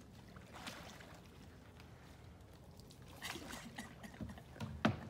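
Paddles dipping and stroking through still pond water as a small homemade plywood boat is paddled, faint splashes and drips. One sharp thud near the end.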